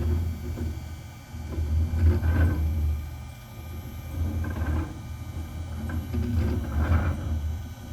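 Onefinity Foreman CNC table rumbling as its X and Y axes move together to cut arcs. The low rumble swells and dips every couple of seconds. It appears only when both axes run at once, and the owner is unsure whether it is normal or a sign that something is failing and needs service.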